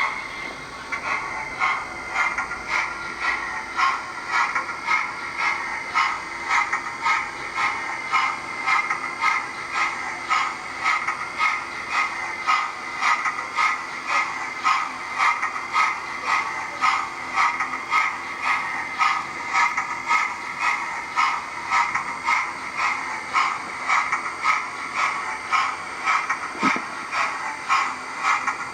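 00 gauge model Q6 steam locomotive running on the layout, giving a steady, even chuffing rhythm of about two beats a second over a constant whine.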